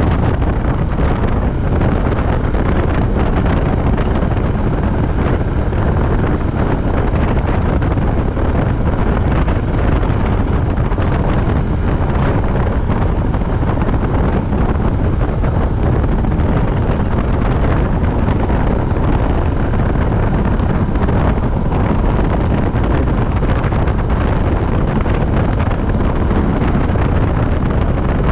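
Wind buffeting the microphone of a camera mounted on a moving quad bike, mixed with the bike's engine; loud and steady.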